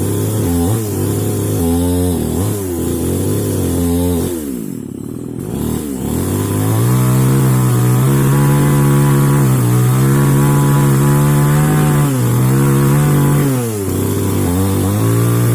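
Two-stroke mini chainsaw engine revving. The throttle is blipped a few times and drops toward idle about five seconds in, then is held at a steady high speed before one brief dip near the end.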